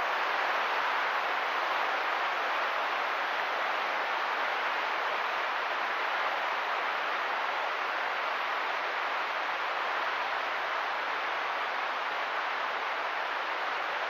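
Steady rush of a fast-flowing creek's white-water rapids, an even wash of water noise with no breaks.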